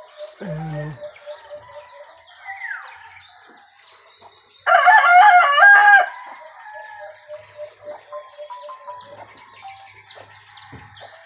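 A rooster crows once, loudly, beginning about four and a half seconds in and lasting about a second and a half, over steady twittering of small birds. A short low sound comes just after the start.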